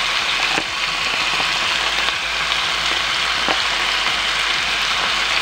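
Mixed vegetables (potato, carrot, green beans, cauliflower) frying in oil in a non-stick pan, a steady sizzle with a couple of faint ticks.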